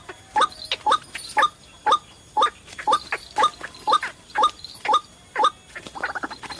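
White-breasted waterhen calling: a run of short, upward-sweeping notes at about two a second, changing near the end into a fast stuttering series.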